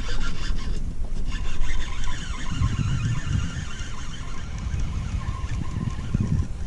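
Wind buffeting the microphone over the steady hum of a Yamaha 25 hp two-stroke outboard running at trolling speed.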